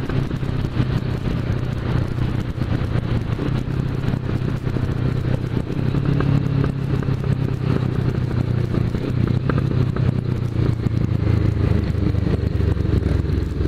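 Motorcycle engine running steadily at cruising speed, with wind and road noise on the bike-mounted camera.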